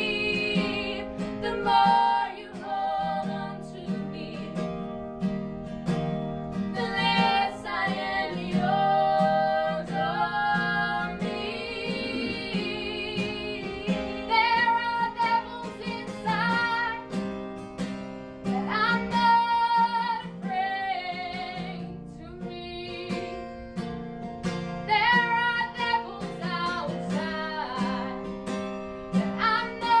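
A woman singing live over a strummed acoustic guitar.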